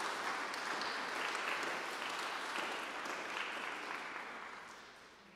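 Audience applauding: many hands clapping steadily, dying away over the last second or so.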